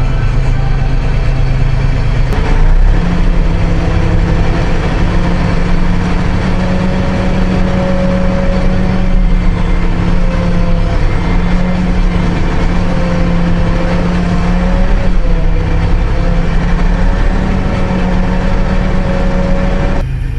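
Tractor diesel engine running steadily under load, a continuous drone whose pitch dips and rises slightly several times.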